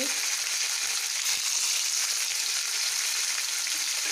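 Paneer cubes frying in hot refined vegetable oil in a kadai (Indian wok), giving a steady sizzle.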